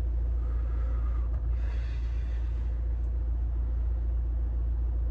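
A drag on a cigarette, then the smoke breathed out in one long exhale starting about a second and a half in, over a steady low hum inside the car.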